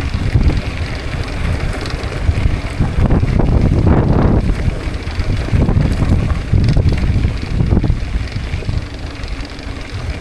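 Wind buffeting the microphone over the rolling rumble of a mountain bike being ridden, swelling louder twice.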